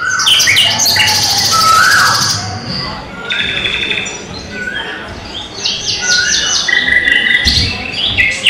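Recorded birdsong played as a stage sound effect: several birds chirping, trilling and whistling at once, many short calls overlapping.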